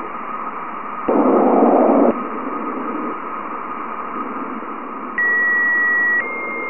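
Sonified plasma-wave radio data from NASA's Juno spacecraft passing through Jupiter's ionosphere: a steady, radio-like hiss with a faint held tone. About a second in, a louder burst of lower hiss lasts about a second. Near the end a high steady tone comes in and steps slightly up in pitch.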